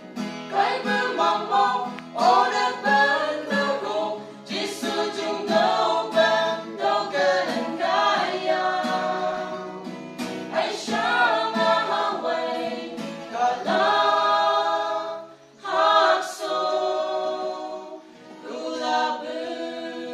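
A small mixed group of women and men singing a gospel hymn together in harmony, in sustained phrases with short breaks between them.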